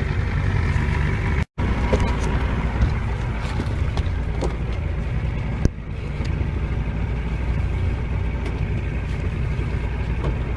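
Boat motor running steadily at trolling speed, a low drone with wind and water noise over it. The sound drops out completely for a moment about a second and a half in.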